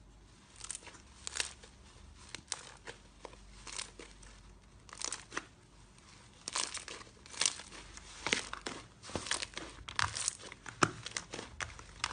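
Slime being worked by hand, giving irregular sharp crackles and pops that come thicker and louder in the second half.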